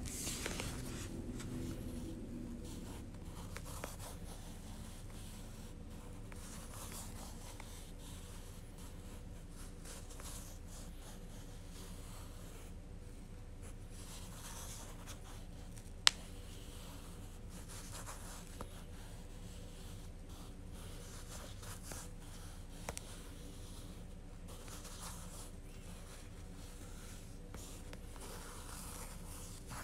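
Soft, faint rubbing and scratching of yarn being wound by hand around a small plastic ball, the strands sliding over the plastic and the fingers. A single sharp click about halfway through.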